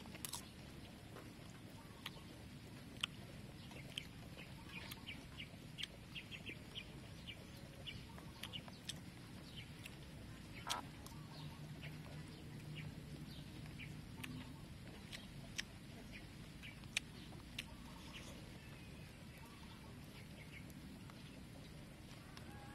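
A person eating omelet with a metal spoon: chewing and mouth clicks, and the spoon scraping and clinking on a wooden tray, heard as a scatter of short sharp clicks.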